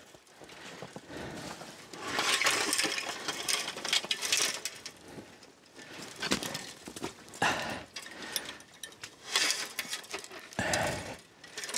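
Irregular rustling and crunching, in several separate bursts, of a person shifting about in snowy undergrowth and handling a wire fence.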